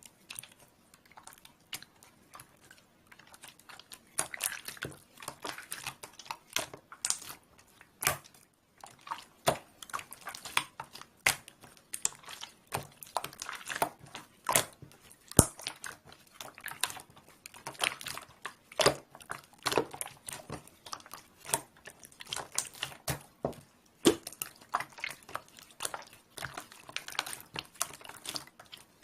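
Slime being squeezed, stretched and pressed by hand, making irregular sharp clicks and wet pops, sparse at first and denser from about four seconds in.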